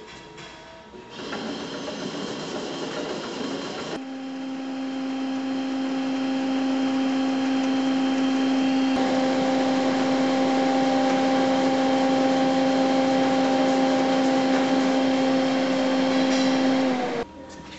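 P4 thermal inkjet pouch printer running: a steady motor hum at one unchanging pitch over a hiss. It starts abruptly about four seconds in, after quieter mechanical noise, and cuts off about a second before the end.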